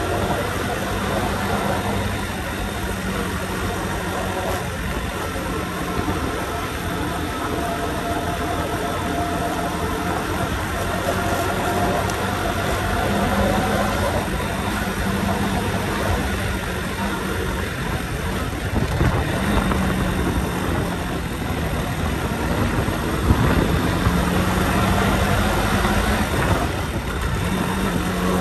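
Motorcycle engine running at riding speed, its note rising and falling a little with the throttle, under steady rushing wind noise.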